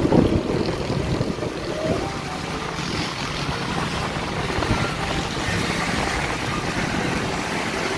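Wind rushing over the microphone on an open-air motorbike ride, over a steady drone of engine and road noise.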